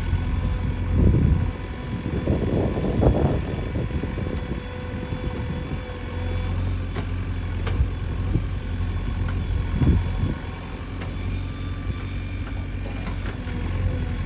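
A JCB 3DX backhoe loader's diesel engine runs steadily. Louder rough bursts of machine noise rise over it about a second in, again from about two to three and a half seconds, and once more near ten seconds.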